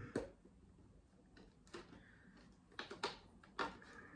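Fingernails picking and scraping at the tape on the side of a cardboard toy box: a handful of short, faint scratching clicks and rasps.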